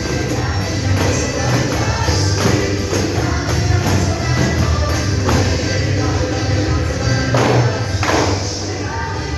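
A gospel hymn playing with singing, while a group of tambourines is shaken and struck along with it, with several bright jingle accents in the second half.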